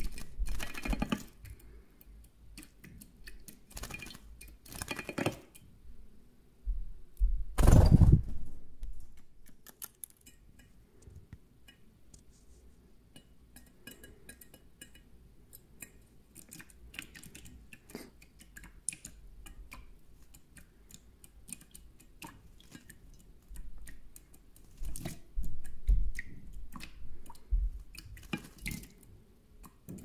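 European goldfinch bathing in a shallow stainless-steel bowl of water: bouts of splashing, the loudest about eight seconds in and another run near the end. Between them come small clicks and drips on the metal bowl.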